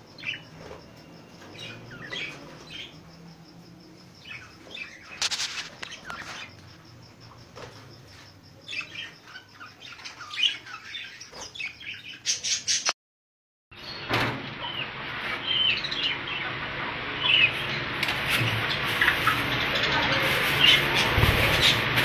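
Caged budgerigars chirping and chattering. The calls are scattered at first. After a brief cut about halfway through, a denser, louder chatter of many birds together follows.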